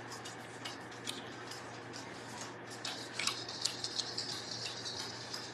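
Quiet kitchen handling: scattered light clicks and a brief scraping rustle about three seconds in as chicken pieces are coated in a grated-Parmesan seasoning mix, over a faint steady low hum.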